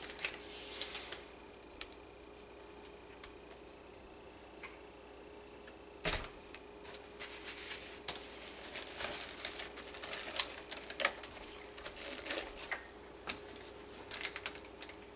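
Silicone spatula scraping and tapping against cups as thick hot-process soap batter is spooned out and stirred: scattered light clicks and scrapes, a single knock about six seconds in, then busier tapping and stirring in the second half. A faint steady hum runs underneath.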